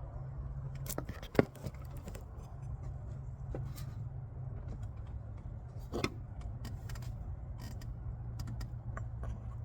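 Small clicks and scrapes of a hand tool prying old O-rings off a plastic oil filter housing cap, with sharp ticks about a second in and near six seconds, over a steady low hum.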